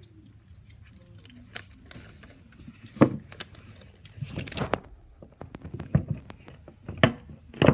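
Wooden rolling pin pressed and rolled over sunflower seeds on a plastic cutting mat: scattered sharp cracks of the shells breaking and knocks of the pin. The loudest crack comes about three seconds in, and a quick run of cracks comes at the end.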